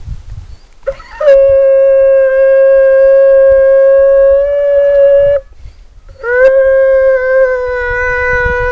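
A hand-held horn blown in two long, steady blasts. The first comes about a second in and holds one pitch for some four seconds. The second starts about a second after the first ends and sags slightly in pitch as it runs on.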